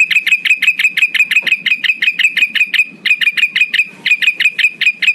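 Recorded lure call of a male golden kutilang (a bulbul): a rapid, machine-even series of sharp high chips, about eight a second, with two brief breaks partway through.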